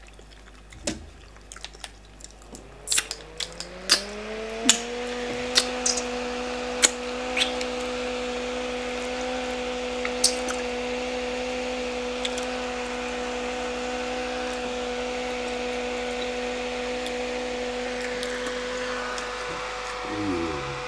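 Small battery-powered handheld fan switched on a couple of seconds in: its motor whine rises in pitch as it spins up, then runs steadily with an airy hiss. Scattered clicks and wet squishes of food eaten by hand in the first few seconds.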